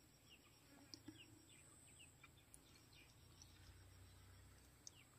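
Near silence: faint outdoor ambience with a small bird's short falling chirps repeating every half second or so.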